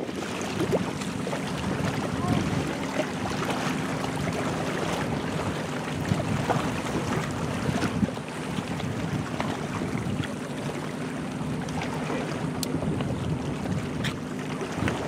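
Wind rushing across the microphone, with small waves lapping against the shoreline rocks.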